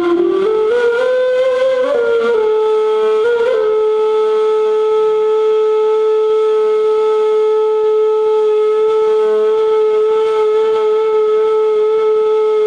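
Turkish ney, an end-blown cane flute, played solo: a short phrase climbing in pitch, then one long steady note held for about nine seconds.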